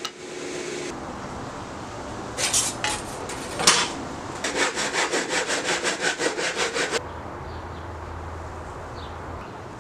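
A Japanese pull saw cutting a softwood strip by hand. A few separate strokes come first, then quick, even strokes at about five a second that stop suddenly about seven seconds in.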